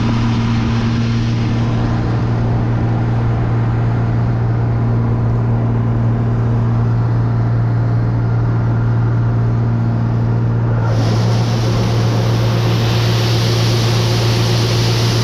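1980s combine running steadily at working speed with a strong constant hum while its unloading auger empties the soybean grain tank. About eleven seconds in, a loud hiss joins the engine and holds.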